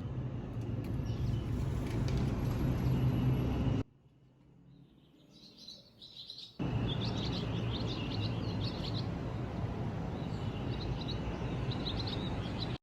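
Birds chirping in short, quick repeated calls over a steady outdoor background noise. The background noise drops away for about three seconds near the middle while the chirping carries on.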